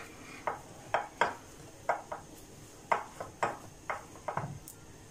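Silicone spatula pressing and scraping mashed boiled potato against a bowl: about ten short scrapes, irregular, roughly two a second.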